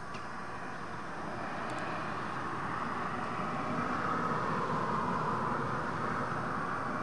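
Distant engine noise: a steady rush that swells over a few seconds and eases slightly near the end, with a faint high tick about two seconds in.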